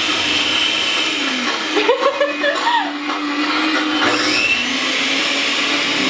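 Electric hand mixer running steadily, its beaters whirring in a metal bowl as butter is beaten for cake batter. A brief voice cuts in about two seconds in.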